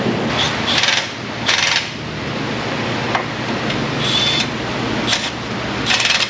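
Tool work on a car's brakes: half a dozen short hissing bursts, each well under half a second, spaced irregularly over a steady shop background.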